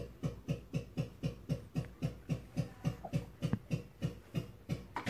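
Steady rhythmic knocking, about four knocks a second, each a short click with a brief low thump that falls in pitch.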